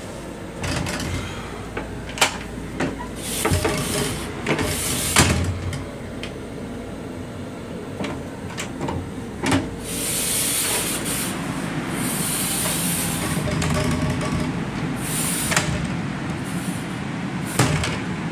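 Sharp metallic clicks and clunks of a train restroom's door handle and lock being worked, a handful of separate knocks. Under them runs the steady rumble and hiss of the moving rail car, which grows louder and hissier about halfway through.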